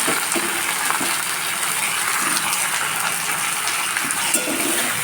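Mutton pieces frying with onions in hot mustard oil, a steady sizzle with a few light clicks of a stirring utensil.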